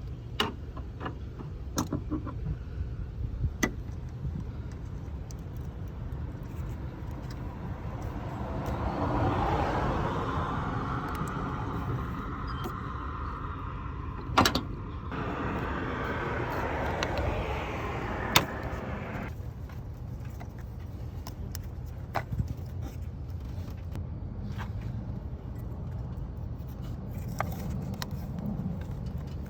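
Scattered clicks and small clinks of hands working a hose and retaining clip loose from a car's evap purge valve, over a steady low rumble. A louder rushing noise swells through the middle and cuts off suddenly about two-thirds of the way in.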